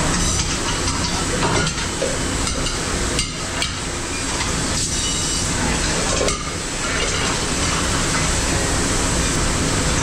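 Commercial pre-rinse spray hose blasting water onto dishes in a dish rack, a loud steady hiss and splash, with a few clatters of dishes being handled.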